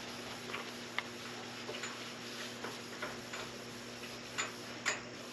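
A rag scrubbing the painted surface of a 1991 Camaro front fender, giving short scrapes and ticks at irregular intervals over a faint steady hum.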